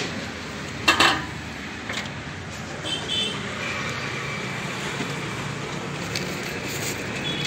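Steady street traffic noise, with one sharp clatter about a second in.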